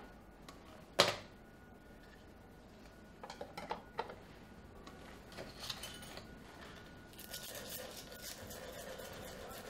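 Shoemaker's bench work on a wooden lap board: a sharp wooden knock about a second in, a few light clicks and taps at three to four seconds, then steady rubbing across the board from about seven seconds on.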